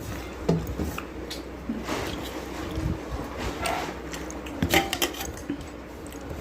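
Eating sounds at a home meal: soft squishing of food being handled and chewed, with a few short clicks of dishes.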